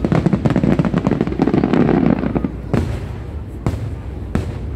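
Aerial fireworks display. A fast barrage of many crackling bursts with a heavy low swell fills the first two and a half seconds, then single bangs follow about once a second.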